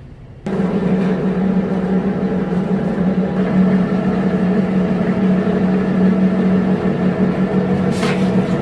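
A machine running with a steady, loud hum on a strong low tone, cutting in abruptly about half a second in; a brief hiss near the end.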